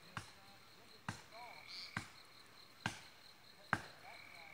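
Hatchet chopping into a pine trunk: five sharp blows at an even pace, about one a second.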